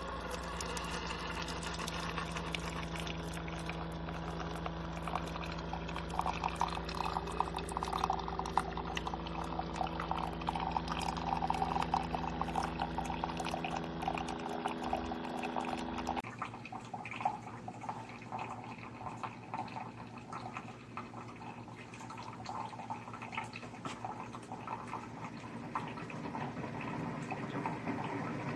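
Keurig single-serve coffee maker brewing, liquid streaming into a cup over a steady machine hum. The sound changes abruptly about halfway through.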